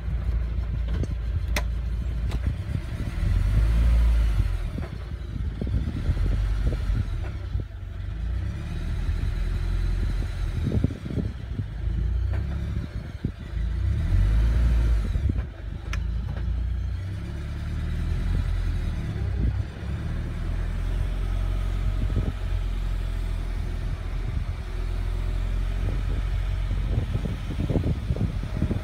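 Scion FR-S's 2.0-litre flat-four engine running, its low drone rising and falling, with a faint high-pitched whine coming and going above it. The whine is new to the car; the owner cannot tell whether it comes from the engine or the transmission, and finds it most audible after a cold start and under load.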